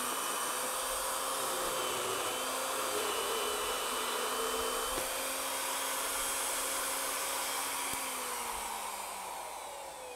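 Electric plunge router with a 1/4-inch bit running steadily at speed. Near the end it is switched off and its whine falls in pitch and fades as the motor spins down.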